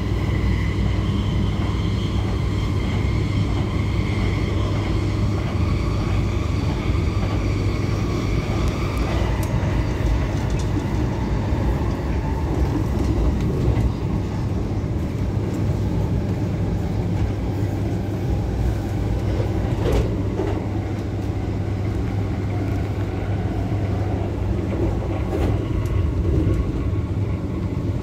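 Steady low rumble of an MTR K-Train running on the track, heard inside the passenger car. A high whine from the train's traction motors runs for about the first nine seconds and then dies away. There is a single sharp click about twenty seconds in.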